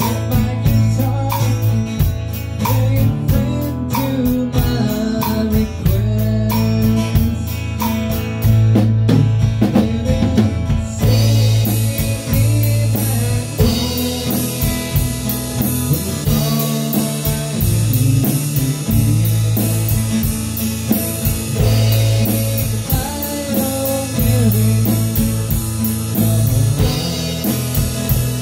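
Live band rehearsing a country song: acoustic guitar strumming, with singing and a steady bass line. Light ticks on the drum kit keep time at first. About eleven seconds in, the full kit comes in with cymbals.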